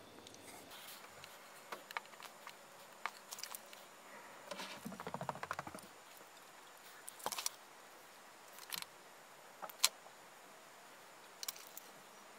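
Faint handling noises at a workbench: a few light clicks and a brief rustle a little before the middle as wires, heat-shrink tubing and a soldering gun are handled.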